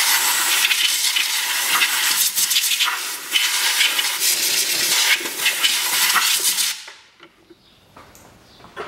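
Compressed air from a blow gun hissing as it blows dust out of an empty air filter housing, in one long blast with a few brief dips, cutting off about seven seconds in.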